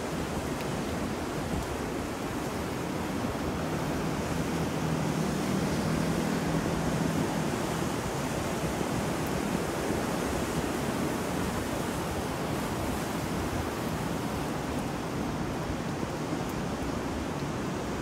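Ocean surf and wind: a steady rushing noise that swells a little a few seconds in and then eases back.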